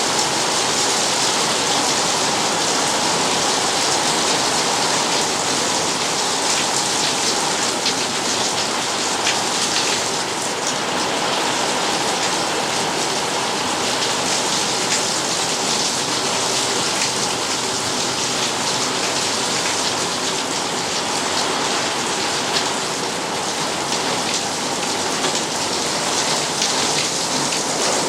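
Steady rain on a corrugated iron roof, a dense patter of drops on the metal sheets.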